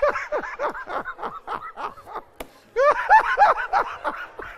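A man laughing heartily: a quick run of short 'ha' sounds, each falling in pitch, a brief break, then a louder burst of laughter about three seconds in.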